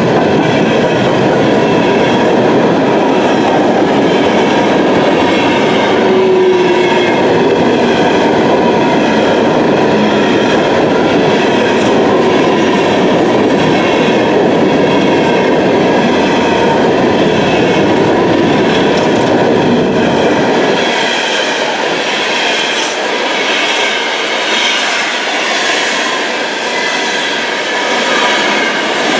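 Empty CSX coal train's open-top coal cars rolling past close by: a steady rush of steel wheels on rail with clickety-clack over the joints. About twenty seconds in, the deep rumble drops away and the sound thins.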